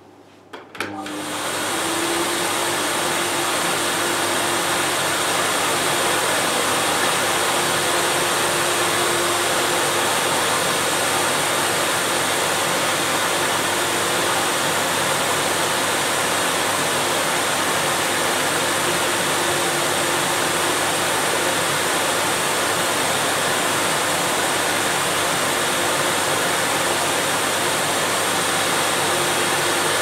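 Lux Royal D790 canister vacuum cleaner switched on with a click about a second in, its motor spinning up to full speed within a second or so, then running steadily: a loud rush of air with a faint steady hum under it.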